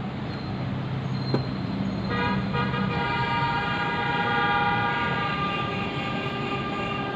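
Street traffic with an engine running, and a vehicle horn that sounds about two seconds in and is held steady for several seconds.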